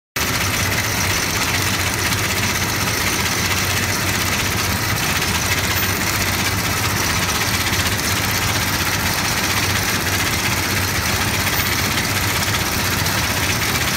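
Automatic big-bag (FIBC) pattern sewing machine running steadily as it stitches webbing and a patch onto woven polypropylene fabric, an even mechanical noise with no pauses.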